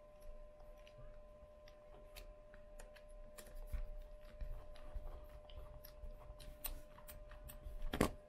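Small scattered clicks and ticks of a hex driver turning a screw in a plastic RC buggy hub carrier, over a faint steady hum. Near the end comes one louder clatter as the metal driver is set down on the cutting mat.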